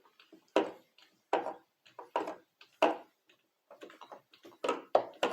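Plastic keys of an electronic piano keyboard knocking down as a cloth is wiped across them, a short clack about every second, coming closer together near the end.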